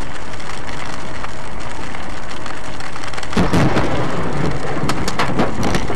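Steady heavy rain on a moving car, picked up by a dashcam, with a loud thunderclap from a nearby lightning strike about three and a half seconds in, followed by a few sharp cracks.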